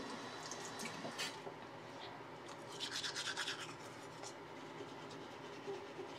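A toddler brushing his teeth with a small manual toothbrush: the bristles scrub in short, scratchy strokes, with a run of about eight quick strokes around three seconds in.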